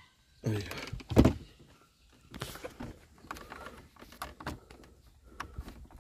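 Hand work on car dashboard wiring: a metal wire terminal is pinched tighter with diagonal pliers so it will grip, then worked into a plastic connector. There is a sharp knock about a second in, followed by scattered small clicks and rustles of wires and plastic.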